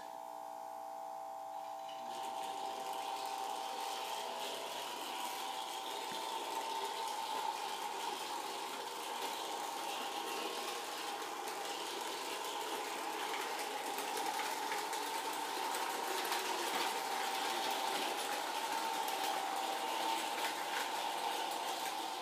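Gilbert American Flyer 499 New Haven S-gauge model electric locomotive running with its train of cars on sectional track: a steady mechanical whir and rattle that sets in about two seconds in.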